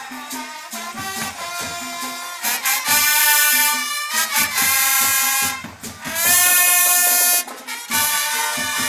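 Latin-style marching brass band playing: trumpets and other brass in loud held chords, each reached by a rising swell, about three seconds in and again about six seconds in.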